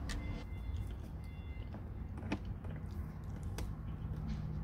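A few light, scattered clicks and scrapes of needle-nose pliers working at the plastic fitting of an RV low point drain, over a steady low rumble.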